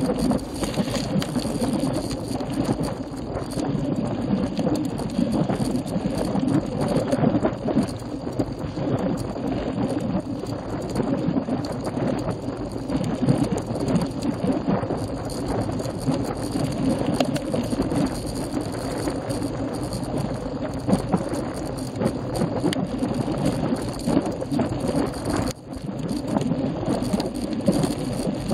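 Steady rattle and rumble of a road bike climbing slowly over rough asphalt, picked up by a camera mounted on the handlebars: tyre noise on the coarse surface and the bike and mount shaking.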